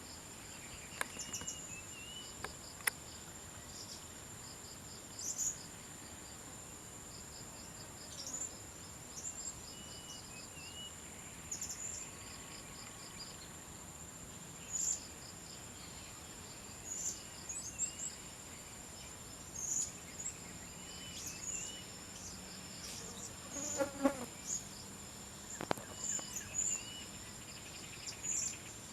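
Steady, high-pitched insect chorus, with short bird chirps scattered throughout. A brief low rattling sound stands out about 24 seconds in.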